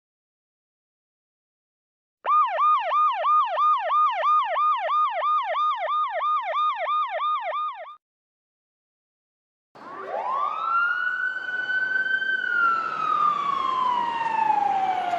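Emergency vehicle sirens: about two seconds in, a fast yelp sweeping up and down about four times a second for some six seconds and stopping abruptly, then after a short gap a wail that climbs steeply, holds, and slowly falls over a background hiss.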